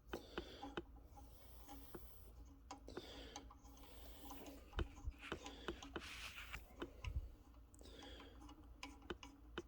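Faint scattered metallic clicks and taps, with some soft rustling, as brass hose nuts are handled and threaded by hand onto the oxygen and acetylene regulator outlets.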